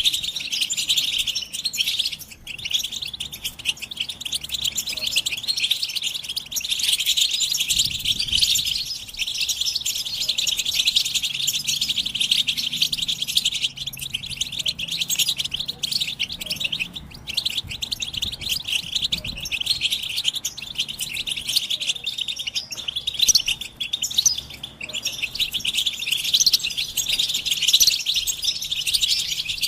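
A group of European goldfinches twittering and calling without a break, in a dense, rapid, high chatter of the excited kind given as mating calls.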